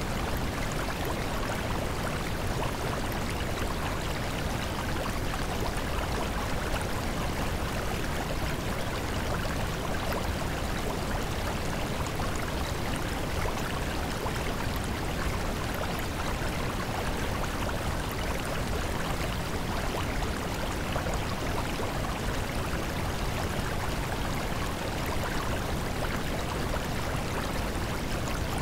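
Steady rushing noise of flowing water, like a stream ambience, unchanging throughout.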